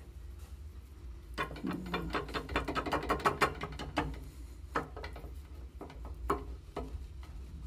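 Ball screw of a Fadal 4020 CNC mill turned by hand through its ball nut: a quick run of ratcheting clicks starting about a second and a half in and lasting two to three seconds, then a few single clicks.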